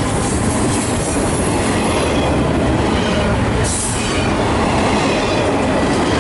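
Double-stack intermodal train's well cars rolling past close by: a loud, steady noise of steel wheels running on the rails.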